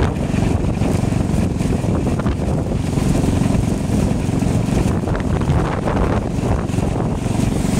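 A motorbike ride: steady wind rushing over the microphone, with the bike's running and road noise as a continuous low rumble underneath.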